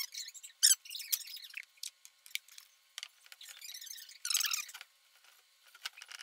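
Rag and nitrile-gloved hands rubbing wipe-on polyurethane onto a steel gate frame: irregular rubbing strokes with sharp squeaks, the loudest about two-thirds of a second in.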